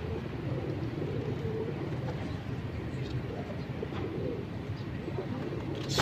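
A flock of feral pigeons cooing steadily.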